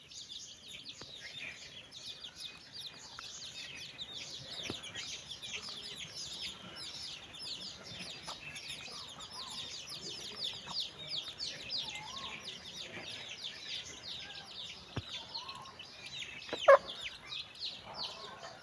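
A brood of chicks peeping without pause in many overlapping high, quick chirps, with a mother hen's lower clucks now and then. One sudden loud sound stands out near the end.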